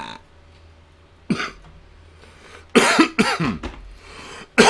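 A man coughing in short bouts: a single cough about a second in, then a few coughs around three seconds in and again at the very end.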